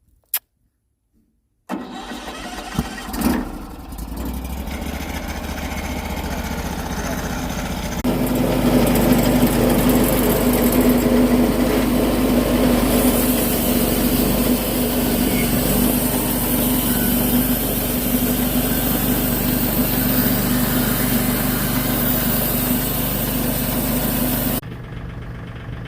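An engine starts up just under two seconds in and runs steadily. About eight seconds in it runs louder with a strong steady hum, then drops suddenly to a quieter running sound near the end.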